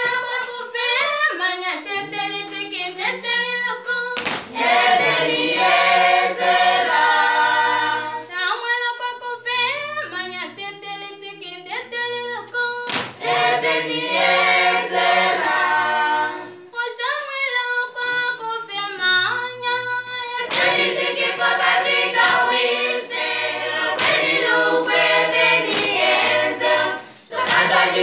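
A group of voices singing together unaccompanied, with hand claps, dropping out briefly twice before starting again.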